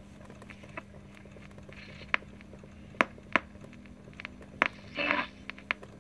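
Philips AR060 radio's speaker between stations while the tuning wheel is turned: faint hiss over a steady low hum, broken by several sharp clicks and crackles and a brief snatch of signal about five seconds in.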